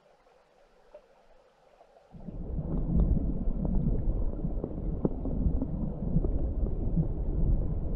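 Underwater river noise from a camera submerged in a stream: a faint hiss at first, then from about two seconds in a loud low rumble of flowing water with many small clicks and ticks.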